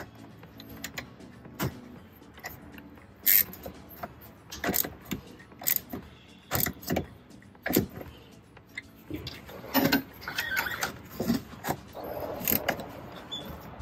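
Battery cable terminal clamps being fitted and tightened onto the posts of a new car battery: irregular metallic clicks, taps and knocks of clamp and tool, busier in the last few seconds.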